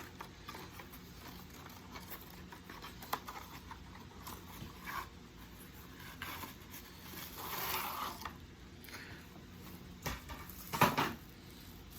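Tripod being unpacked and handled: scattered small clicks, scrapes and rustles of its packaging, with a louder clatter near the end.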